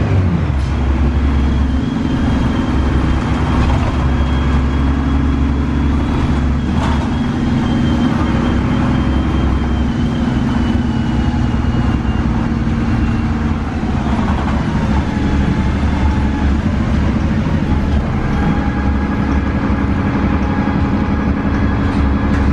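Inside a moving 2002 Gillig Advantage transit bus: its Cummins ISC inline-six diesel runs steadily with road noise, joined by a faint high whine that slowly falls in pitch over several seconds.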